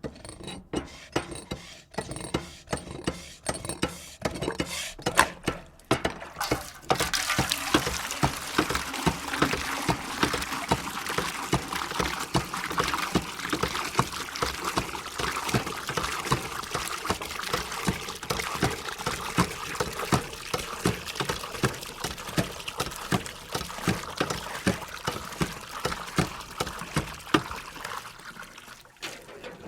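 Hand-operated lever water pump being worked: rhythmic knocks of the handle strokes, then after about six seconds water starts gushing from the spout and keeps pouring with each continued stroke, dying away near the end.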